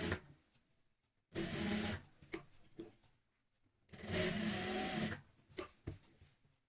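JUKI industrial sewing machine stitching in short runs, starting and stopping three times. The longest run lasts about a second, and there are a few light clicks between runs.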